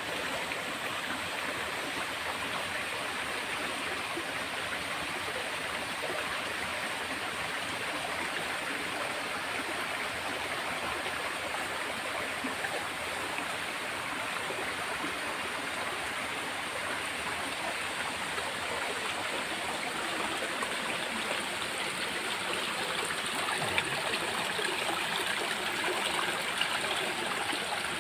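Water flowing steadily in a stream, a continuous rushing and babbling.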